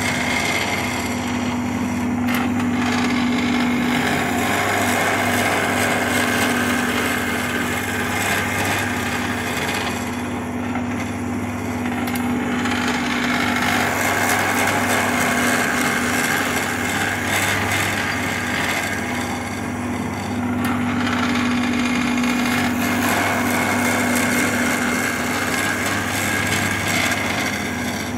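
Wood lathe running with a steady motor hum while a turning tool cuts the spinning wood, giving a continuous scraping hiss that eases off briefly about three times.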